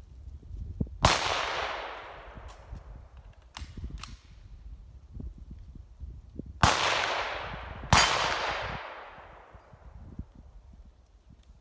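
Three gunshots fired while walking: one about a second in, then two more about a second and a half apart later on, each followed by a long echo that dies away over a second or more.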